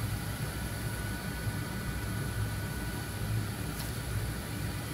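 Quick 861DW 1000 W hot air rework station blowing steadily onto the chip, a continuous rushing of air with a low hum, while the solder under the QFN chip reflows. A faint click near the end.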